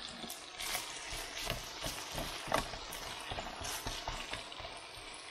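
Diced potatoes and bacon sizzling in fat in a nonstick frying pan, stirred with a plastic spatula that scrapes and clicks against the pan at irregular moments.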